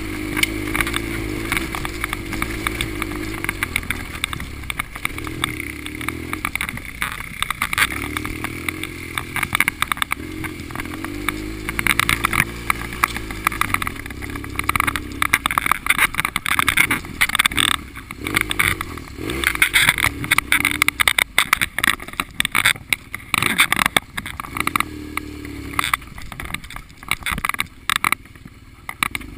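Adventure motorcycle engine running on a rough dirt trail, its pitch rising and falling repeatedly with the throttle, under wind noise. Frequent sharp knocks and rattles from the bike over bumps, denser in the second half.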